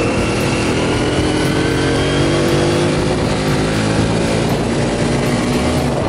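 A road vehicle's engine running while driving along, its pitch falling slowly and steadily, over steady road and wind noise.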